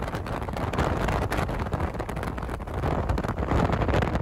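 Road and wind noise of a moving car heard from inside, a steady rush that swells twice.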